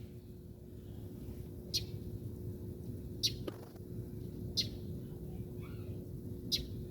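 A bird chirping: four short, high calls about a second and a half apart, over a steady low background hum.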